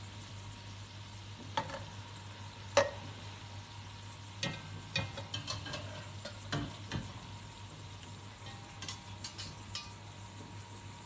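A metal spatula and tongs clink and scrape against a cooking pot as chicken pieces are turned, with the loudest knock about three seconds in and clusters of clicks later. Under it runs a low sizzle of frying and a steady low hum.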